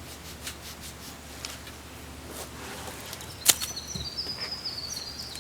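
A single sharp knock about three and a half seconds in, then a bird singing a quick, high, warbling song. A low steady hum runs underneath.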